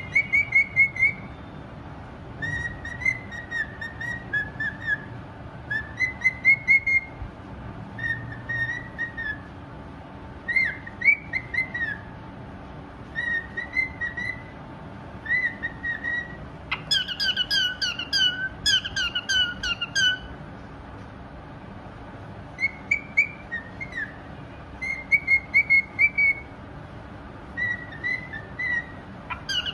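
Pied cockatiel singing: a series of short warbling whistled phrases, each about a second long, repeated with brief gaps. The phrases grow louder and lower-pitched from about 17 to 20 seconds in.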